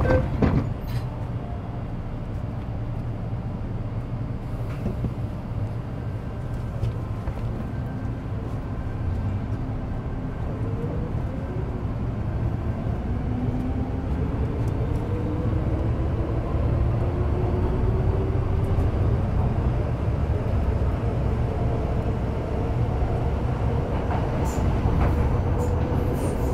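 Metro Cammell M-Train electric multiple unit with GEC GTO chopper traction pulling away and gathering speed. Its motor and chopper whine climbs steadily in pitch over a low rumble of wheels on track that slowly grows louder.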